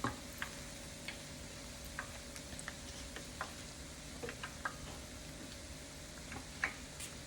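Dough buns deep-frying in hot oil: a low steady sizzle with irregular sharp pops and crackles, about a dozen scattered through it, over a faint steady hum.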